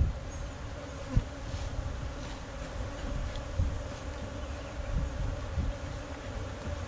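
Honey bees buzzing steadily over the frames of an opened nuc hive, with a single sharp knock about a second in.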